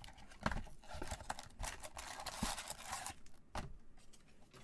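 Gloved hands opening a cardboard trading-card box and sliding out its stack of packs: irregular rustling and scraping of packaging, with a few light taps.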